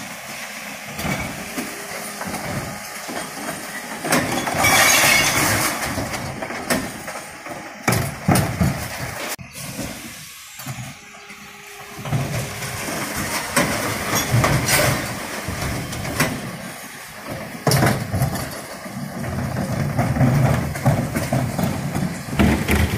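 Mercedes Econic refuse truck with a Faun Variopress body running at the kerb, its engine and hydraulic bin lifters working while bins of glass, cans and plastic are tipped into the hopper. There is a loud clattering crash about four seconds in, and more bangs and clatters follow through the rest.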